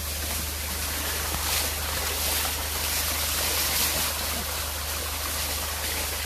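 Running water pouring steadily into a large basin, splashing as minari (water dropwort) is rinsed in it, over a steady low hum.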